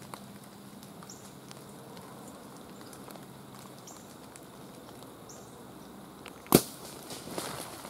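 Quiet woodland background, then a single loud, sharp snap about six and a half seconds in, typical of a compound bow being shot, followed by about a second of rustling in the brush.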